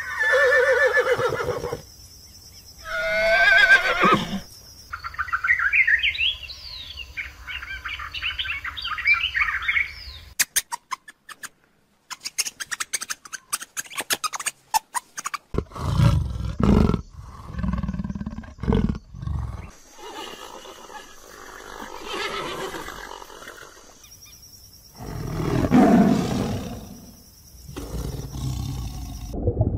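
A series of different animal calls one after another: pitched calls at first, then a stretch of quick rising chirps, a run of sharp rapid clicks, and later low, rough calls.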